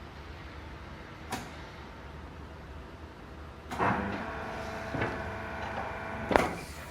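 Butt fusion welding machine's hydraulic drive running for about three seconds with a steady whine, moving the clamp carriage; it starts with a knock and stops with a sharp click. A single click sounds about a second earlier.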